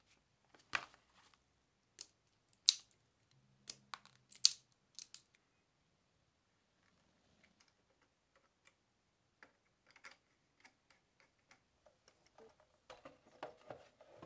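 Workshop hand-work sounds from wiring electrical parts: a few sharp clicks and taps of tools and small parts being handled, loudest in the first five seconds, then fainter clicks and a rustle of cable being handled near the end.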